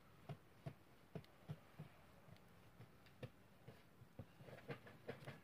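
Faint soft thumps of hands kneading a yeast dough ball on a floured wooden table. The thumps come irregularly, one to three a second, and bunch together near the end.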